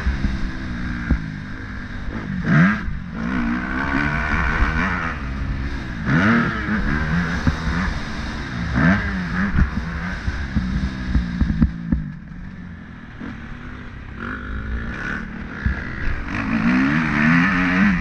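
Motorcycle engine revving hard, its pitch climbing and dropping back several times as the throttle is worked, with a short easing-off past the middle, and some clatter.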